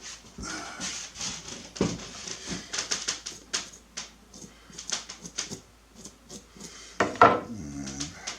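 Kitchen handling sounds while roasted red peppers are readied for peeling: a run of light clicks, taps and rustles, with a louder knock about seven seconds in and a brief low pitched sound just after it.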